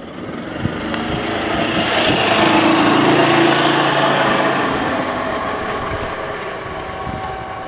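A motor vehicle passing by: engine and road noise swelling to a peak about three seconds in, then slowly fading.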